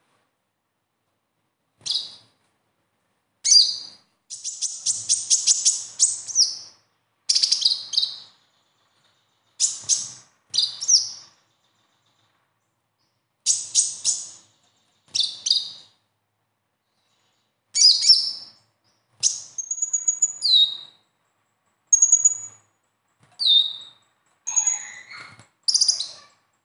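Male van Hasselt's sunbird (konin, 'kolibri ninja') singing its 'besetan' song: short bursts of high, rapid chirping trills, one burst every second or two. There are a few thin whistled notes that drop in pitch near the end.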